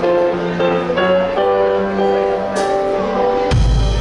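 Live band playing through its amplification during a sound check: held chords that shift every second or so, a bright crash about two and a half seconds in, then a heavy low drum-and-bass hit near the end.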